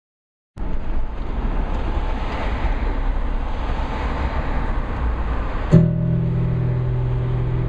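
A steady rush of street traffic and road noise. About three-quarters of the way through, a click is followed by music with held notes.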